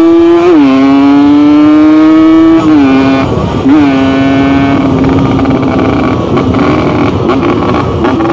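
Yamaha RX-King single-cylinder two-stroke motorcycle engine accelerating on the road. Its pitch climbs, then drops sharply at each gear change, twice in the first three seconds, then runs steadier and slowly rises again, with more rushing noise underneath in the second half.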